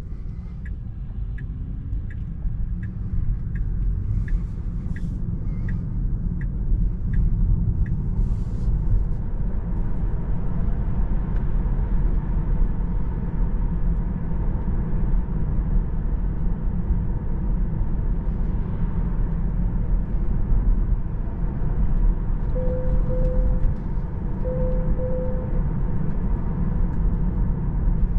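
Tesla Model 3 electric car driving, heard from inside the cabin as a steady low road and tyre rumble that grows louder over the first ten seconds as the car gathers speed. A regular ticking, about one and a half ticks a second, runs through the first eight seconds, and two pairs of short beeps sound near the end.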